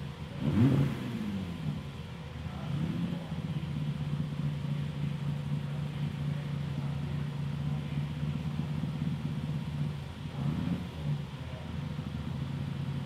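A car engine idling steadily, blipped briefly with a short rise and fall in revs about a second in and again near the end.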